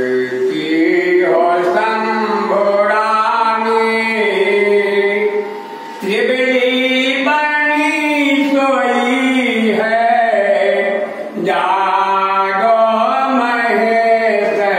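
Devotional aarti hymn sung as a chant, with long held notes and brief pauses between lines about six and eleven seconds in.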